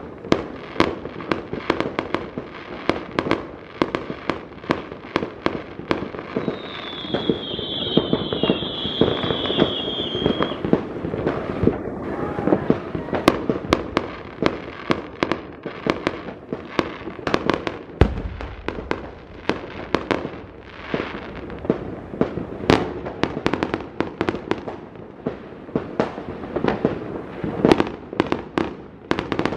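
Many fireworks and firecrackers going off at once: a dense, irregular barrage of bangs and cracks with no pause. A high wavering whistle rises over the bangs for a few seconds about a quarter of the way in.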